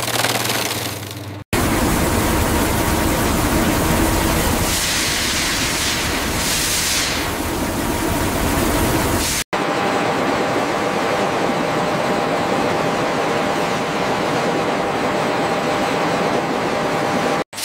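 Tire-recycling machinery running in three abruptly cut pieces. First a short burst of shredder rotor noise. Then a heavy low running noise with a hiss rising over it about five seconds in as water mist sprays onto shredded rubber. After a cut about nine and a half seconds in, a steadier machine noise with a faint steady tone as a rubber conveyor runs.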